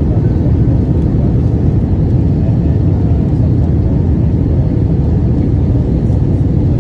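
Steady low rumble of jet airliner cabin noise heard from a window seat, engine and airflow noise on the descent to land.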